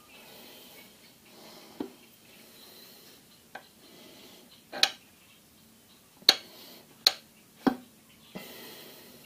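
Sharp metal clinks and knocks of steel engine parts being handled at the exposed crankshaft and connecting rods, about seven in all, the four loudest close together in the second half.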